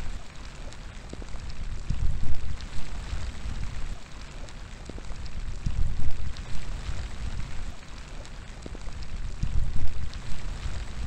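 Steady rain with scattered drops ticking. Deep gusts of wind rumble on the microphone every few seconds.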